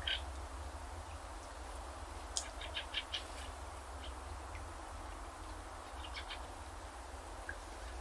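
Small birds giving short high chirps and calls, a quick cluster about two and a half to three seconds in and another about six seconds in, over a steady low rumble.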